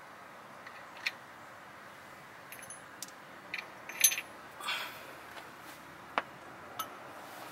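Scattered metallic clinks and clicks of a socket, extensions and bolts being handled by hand. The loudest clink comes about four seconds in.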